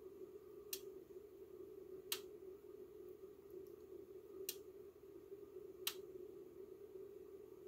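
Ryobi P117 battery charger clicking while charging: four sharp single clicks at uneven intervals over a steady low hum. The owner doesn't think the clicking is normal, and its rate varies.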